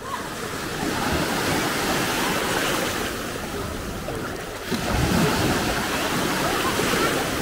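Small Baltic Sea waves washing onto a sandy shore, a steady rush of surf that grows louder about five seconds in.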